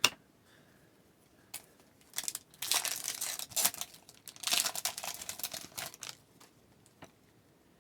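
Foil trading-card pack wrapper being torn open and crinkled, in two spells of crackling tearing.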